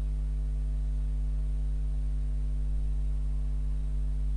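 Steady electrical mains hum in the recording: a low, unchanging buzz with its overtones over a faint hiss.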